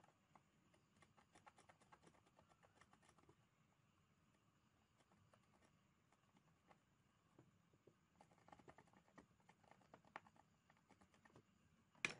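Faint, quick scratching and ticking of small hand work on an electronics bench, in two runs, with a sharper click near the end.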